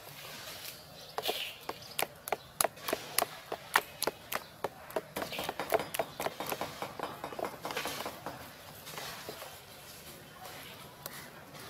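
Wire whisk beating thick batter in a stainless steel bowl: quick, irregular clicks and taps of the wires against the metal, with soft wet scraping. Near the end the clicking stops and liquid is poured into the batter.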